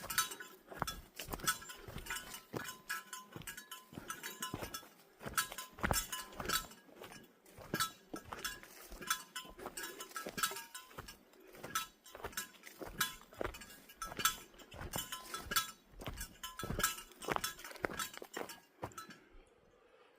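Footsteps walking along a trail, about two steps a second, each step with a small metallic jingle or clink. The sound cuts off suddenly near the end.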